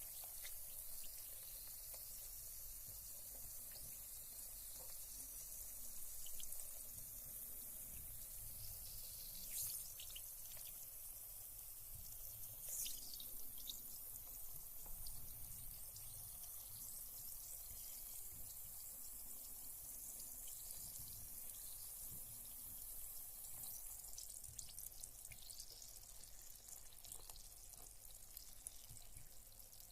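Carbonated bath bomb fizzing in bathwater: a faint, steady hiss of bubbles with scattered small drips, a few of them louder.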